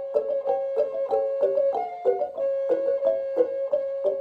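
Tuned percussion struck with two mallets, playing a quick repeating melodic figure of about three notes a second, each note ringing on and overlapping the next.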